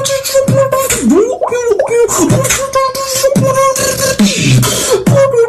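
Beatboxing: rhythmic vocal percussion clicks over a held hummed note, with several swooping downward pitch slides.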